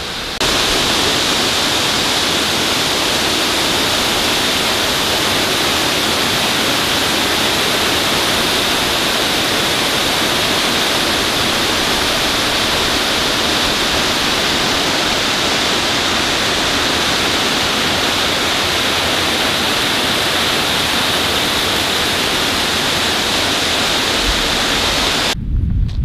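Waterfall pouring, a loud, steady, even rush of falling water that cuts in and out suddenly.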